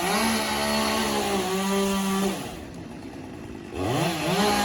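Two-stroke chainsaw running at high revs, eased back to a quieter idle about two and a half seconds in, then revved up again near the end.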